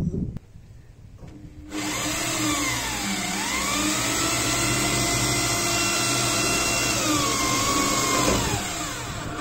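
Corded electric drill driving a self-drilling screw through a metal roofing sheet. The motor starts about two seconds in and runs steadily, its whine dipping in pitch under load as the screw drills in, then recovering, and dipping again before the motor stops near the end.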